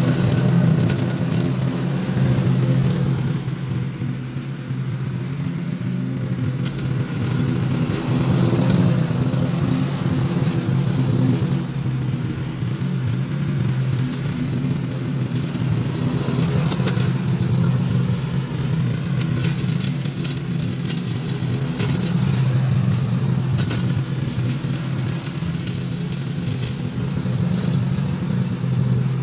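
Small petrol engine of lawn equipment running steadily at working speed, its loudness rising and easing every few seconds as the load changes.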